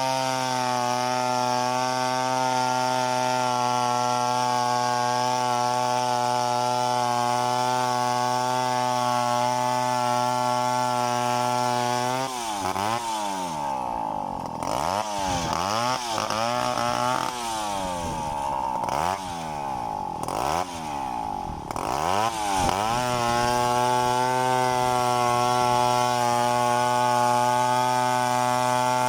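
Two-stroke chainsaw cutting a coconut palm, its engine running at a steady high speed. A little under halfway it spends about ten seconds with its pitch dropping and rising again and again, then it runs steady once more.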